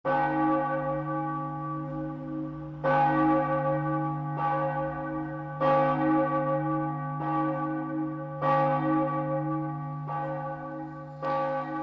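A church bell tolling, about eight strokes at uneven intervals of one to three seconds, its deep hum ringing on steadily between the strokes.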